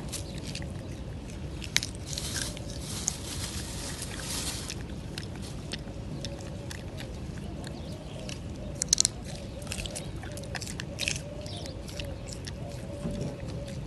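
Close-up handling noises: a soft rustle about two seconds in and scattered sharp clicks, loudest in a quick cluster about nine seconds in, over a steady low rumble.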